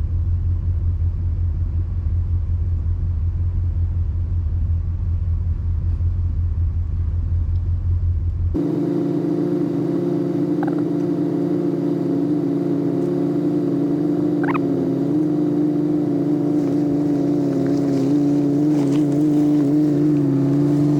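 Off-road vehicle engines running: a deep, low rumble that changes abruptly about eight and a half seconds in to a steadier engine note held at an even pitch, with a brief rising squeak partway through.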